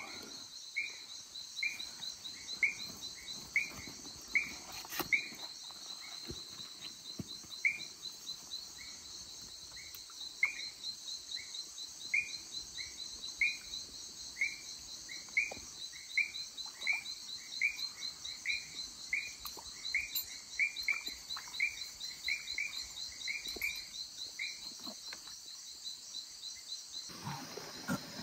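Insects trilling steadily, with a short chirping call repeated about twice a second through most of it, falling away near the end.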